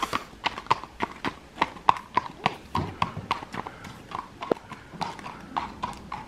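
Horse's hooves clip-clopping on a tarmac lane at a walk, a steady rhythm of about four strikes a second, getting a little fainter as the horse moves away.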